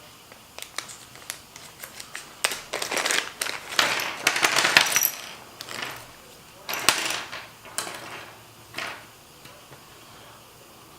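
A bag of small phone-repair tools, tiny screwdrivers and picks, being gone through by hand: irregular rustling with light clicks and clinks of the small tools. It settles down about nine seconds in.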